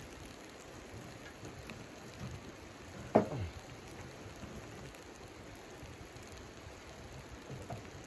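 Steady crackle of a wood fire burning in a small portable camp stove, with a sharp knock and scrape about three seconds in as a stick of wood is pushed into the open firebox.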